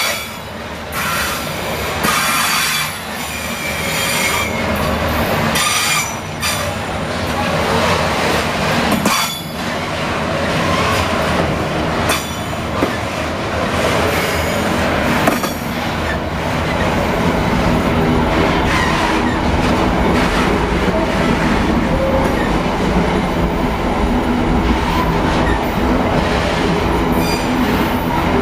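A freight train's wagons, flatcars loaded with steel wire coils and then container wagons, rolling past. In the first half the wheels click sharply over rail joints and squeal on a few high pitches, and the sound settles into a steady, heavier rumble in the second half.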